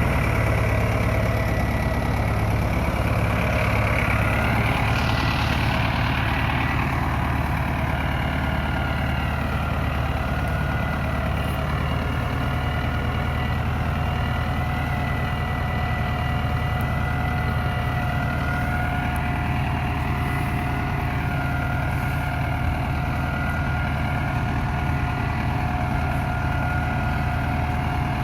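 SAME Explorer II tractor diesel engine running steadily, with a faint higher whine that wavers slightly up and down.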